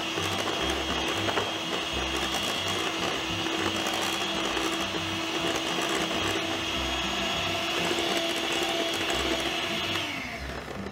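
Imarflex electric hand mixer running steadily, its beaters churning through creamed butter as egg whites are beaten in. It is switched off about ten seconds in, and the motor whine drops in pitch as it stops.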